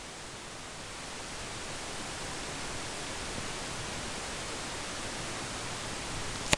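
Steady, even hiss of recording background noise, with one short click near the end.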